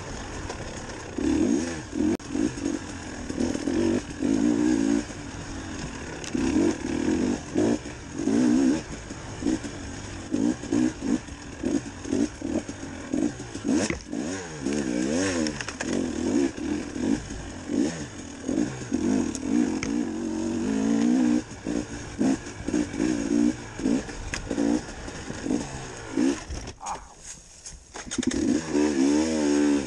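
KTM 300 XC-W TPI single-cylinder two-stroke dirt bike engine revving up and down over and over as the rider works the throttle on a tight trail. Near the end it drops off for a moment with the throttle closed, then picks up again.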